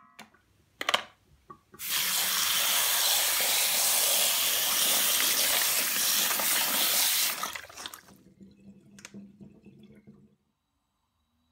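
Kitchen tap running onto frozen mussels in a stainless steel bowl, starting about two seconds in and stopping about five and a half seconds later. Two sharp knocks come before the water, and a few faint clicks follow it.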